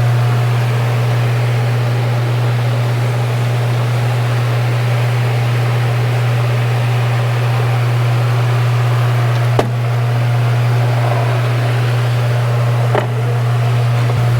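Steady low machine hum with a hiss over it, like a running fan or blower, broken by two short clicks about ten and thirteen seconds in.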